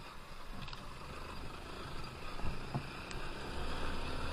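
Honda XR190L dirt bike's single-cylinder four-stroke engine running at low speed over a rutted dirt track, with two short thumps about two and a half seconds in; the engine grows louder about three and a half seconds in.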